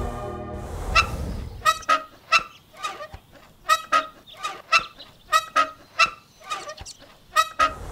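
A rapid, uneven string of short, squeaky comic honks, roughly two or three a second, starting about a second in, after background music fades out.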